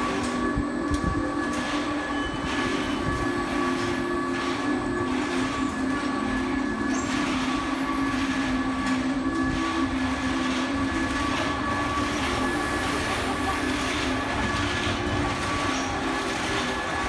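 Machinery of the Carrousel des Mondes Marins, a large mechanical carousel, running as it turns. It makes a steady drone with constant whining tones and a regular clacking about once a second.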